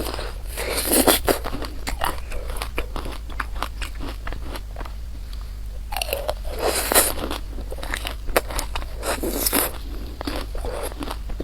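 Close-miked eating sounds: chewing and biting with many small wet mouth clicks. Louder bursts come about a second in, around six to seven seconds, and again near nine seconds.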